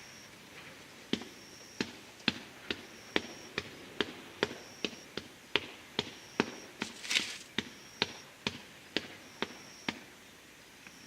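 A run of sharp clicks or taps, about two a second, with a short rustling burst partway through. A faint high-pitched tone comes and goes behind them.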